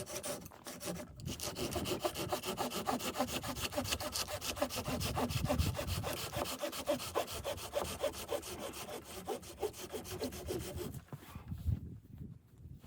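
Saw cutting through wood with quick, even back-and-forth strokes, starting about a second in and stopping near the end.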